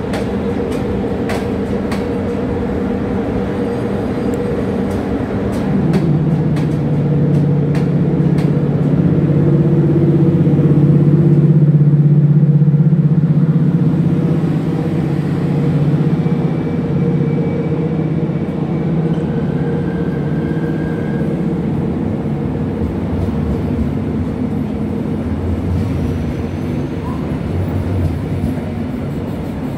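Class 060-EA electric locomotive and its train moving through the station. Its steady electric hum swells about a fifth of the way in, peaks around the middle and eases off again, over a run of sharp clicks in the first several seconds.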